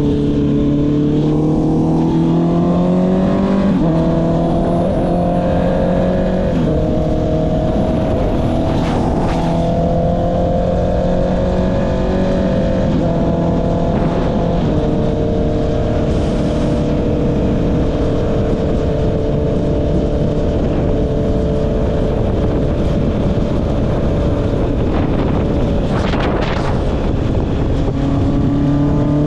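Honda CB650R's inline-four engine running through an Akrapovic aftermarket exhaust while riding. It climbs in pitch over the first few seconds, shifts in steps about 4 and 7 seconds in, then holds a fairly steady cruise.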